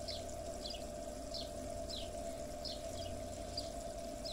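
A bird calling: short high chirps falling in pitch, repeated about every two-thirds of a second, over a steady hum.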